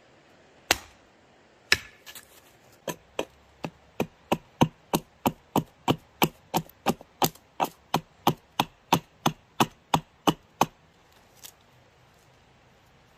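Wood being chopped: two heavy blows about a second apart, then a quick, even run of about two dozen strikes, roughly three a second, ending with one lighter stroke.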